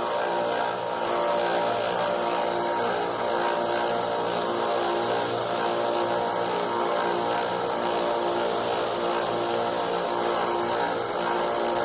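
Bench sander running steadily as it rough-grinds black canvas knife handle scales: a steady motor hum over a grinding hiss.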